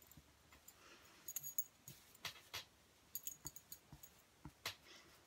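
Thin metal bangles clinking lightly on a moving wrist, in irregular light clinks and clicks, with faint rustling of fingers working through short hair.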